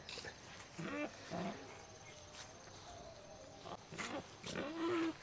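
Wild boar giving a few short, fairly faint grunts, the low hum-like calls it makes when it "talks" with its keeper. The longest call comes near the end.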